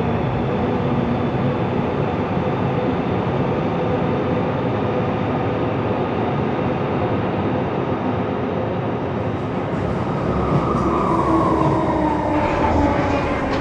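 Film sound effect of the Eiffel Tower elevator running: a steady mechanical rumble with several whining tones. From about ten seconds in the whine falls in pitch, and a few clicks and rattles come near the end.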